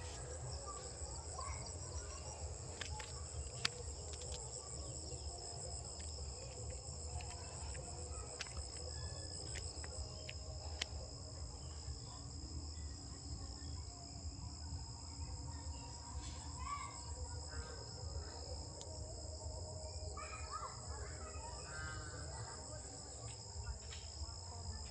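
Insects, crickets, trilling in a steady, unbroken high chorus, over a low rumble.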